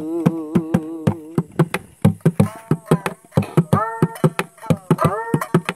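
Instrumental interlude of a Bengali folk song: a wavering melodic line played over quick, steady hand-drum or clapping strokes, about five or six a second.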